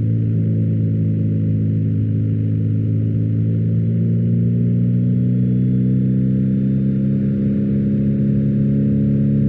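BMW R1250GS boxer-twin engine through an Akrapovic exhaust, pulling steadily in one gear, its pitch slowly rising as the bike gains speed.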